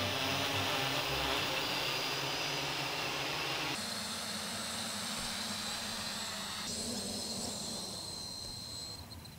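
Steady whirring hiss of a flock of quadcopter drones' rotors in flight, changing abruptly twice and growing quieter toward the end, where crickets begin chirping.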